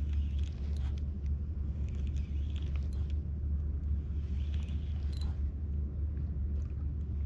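Steady low rumble, with scattered light clicks and brief patches of hiss above it.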